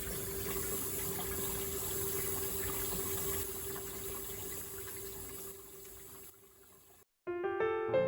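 Panasonic drum-type washing machine running with water rushing through it, a steady hum under the water noise; it fades away about six to seven seconds in. Piano music starts just before the end.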